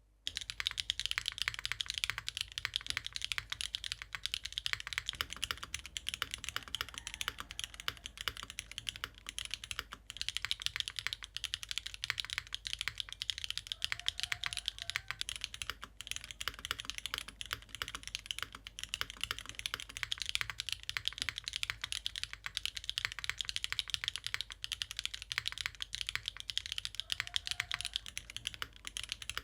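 Custom gasket-mounted 65% mechanical keyboard, with no foam and GMK keycaps, typed on quickly and continuously: a dense run of key clicks and bottom-outs.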